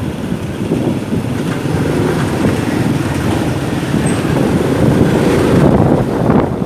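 Motorcycle under way in city traffic: its engine running and road noise, with surrounding traffic, growing louder about two-thirds of the way through.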